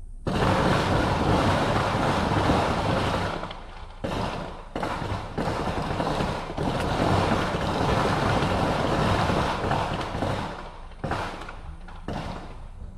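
Wind buffeting the microphone: a loud rushing in gusts that cuts in suddenly at the start and drops away briefly several times.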